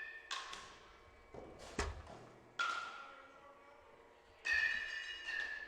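Baseball bat hitting pitched curveballs: two sharp, ringing pings, one past halfway and one near the end, each followed by a lighter knock. A dull thud comes in between.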